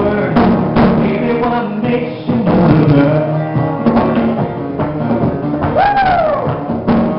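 Live acoustic duo playing: a strummed acoustic guitar and hand-played congas, with male singing. About six seconds in, a high note rises and then falls away.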